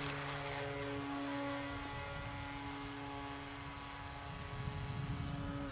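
Durafly Tundra RC plane's brushless electric motor and propeller running at high throttle, a steady whine with many overtones, as the plane takes off and climbs away.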